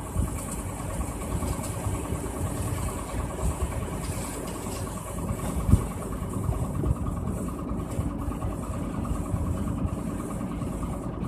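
Vehicle engine idling steadily, with one brief knock about halfway through.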